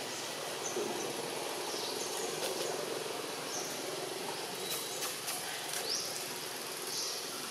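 Outdoor ambience: a steady hiss of insects, with short high bird chirps about once a second.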